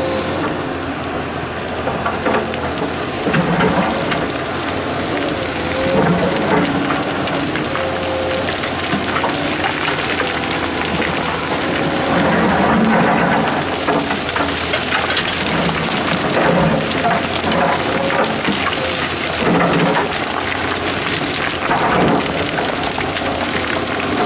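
Komatsu PC230-11 hydraulic excavator working: the engine and hydraulics run steadily with a whine, swelling under load every few seconds as the bucket digs. Loose stones and gravel scrape and rattle with a continuous crackling rumble.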